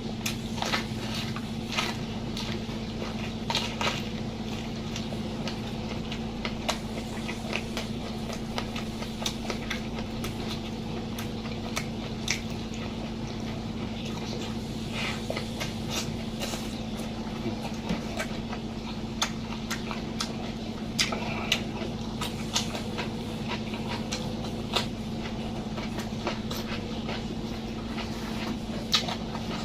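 Close-miked eating: chewing and crunching of food with scattered clicks and clinks of dishes, over a steady low hum.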